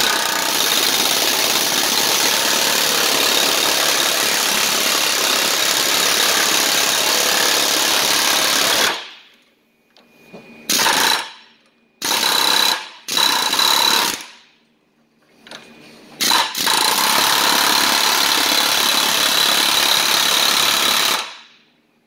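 Pneumatic air hammer hammering worn rubber upper control arm bushings out of the control arm. It runs for about nine seconds, stops, gives a few short bursts, then runs again for about five seconds.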